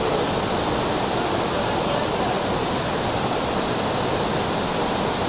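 Lady Barron Falls, a waterfall in full flow: a steady, unbroken rush of falling water.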